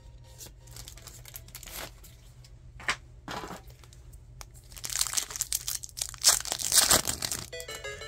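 Pokémon card packaging being crinkled and torn open by hand, in short bursts at first, then a louder, longer stretch of crinkling from about five to seven and a half seconds in.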